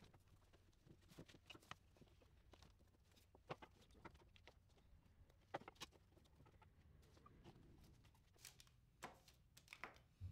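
Faint, scattered clicks and taps from bar clamps and a clamped-up red oak crate being handled and adjusted, a few sharper taps near the end.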